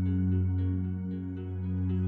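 Ambient new-age background music: a steady low drone under soft notes picked out a few times a second.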